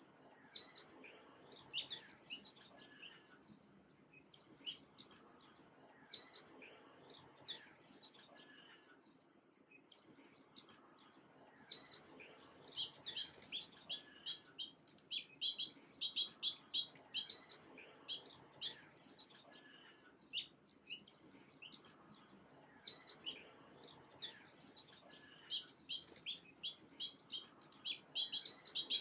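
Small songbirds chirping: short, high chirps scattered through, breaking into fast runs of rapid chirps about halfway and again near the end.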